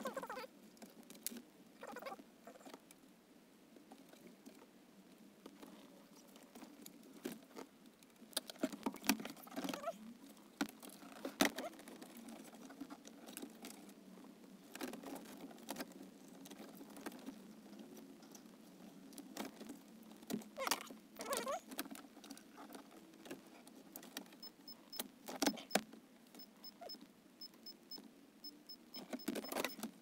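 Fast-forwarded handling of a Honda Fit's plastic dashboard trim and radio unit: a quick, patter-like run of clicks, rattles and scrapes as panels are pried apart and snapped back in. A series of faint, short high beeps comes near the end.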